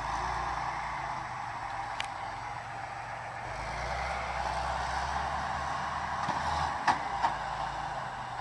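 Heavy eight-wheeled truck tractor's engine running under load while pulling at a tree stump, working harder from about three and a half seconds in. Two sharp knocks come near the end.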